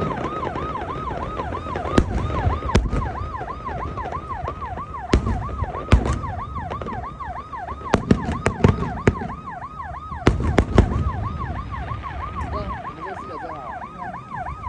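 An electronic siren in rapid yelp mode, sweeping up and down about four times a second, with the sharp bangs of fireworks bursting several times over a low rumble.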